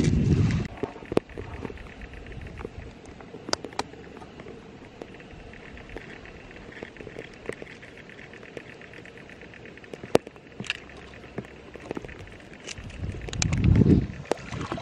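Scattered light clicks and taps of a bamboo tube and a thin stick being handled, over a faint steady hiss. A low rumble comes at the very start and again near the end.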